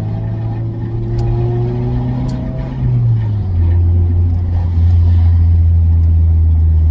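Honda Del Sol engine with a muffler-deleted exhaust (catalytic converter kept) running under way, heard from inside the cabin. It rises in pitch under acceleration, drops about three seconds in with a shift to a higher gear, then runs steady and a little louder.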